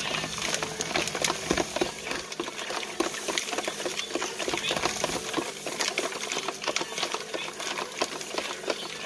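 Kool-Aid being stirred in a plastic pitcher: a utensil knocks and scrapes against the sides in rapid, irregular clicks.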